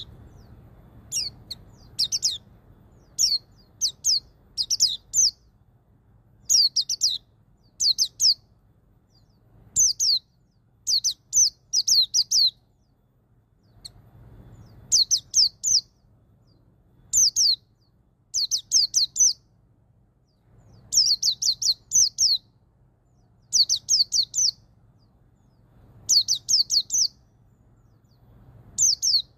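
White-eye (pleci) singing its 'ngalas' call: groups of one to five short, high, downward-slurred notes, repeated every second or two.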